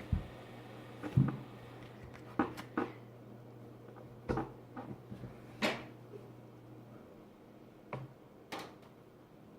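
Scattered knocks and taps of things being handled, about eight in all, the loudest about a second in, over a faint steady hum that stops about seven seconds in.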